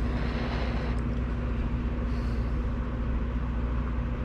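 Steady mechanical hum with a constant low drone and an even hiss, unchanging throughout.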